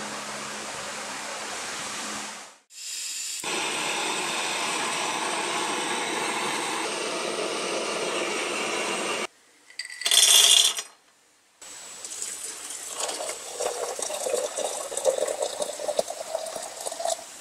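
A steady rushing noise, broken off twice, then a short loud hiss about ten seconds in. From about twelve seconds, hot water is poured from an enamel kettle into a glass teapot, splashing unevenly.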